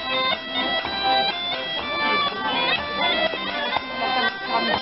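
Live folk dance music played on diatonic button accordions: a steady reedy melody over sustained chords.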